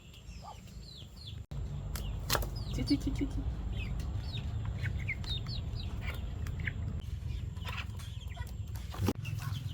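A flock of chickens peeping and clucking as they feed, many short falling peeps over one another, with a couple of sharp knocks and a steady low rumble underneath from about a second and a half in.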